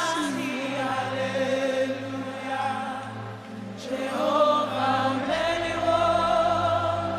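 Gospel worship singing: voices carrying a slow, flowing melody over sustained keyboard and bass chords, with the chord changing about a second in and again about five seconds in.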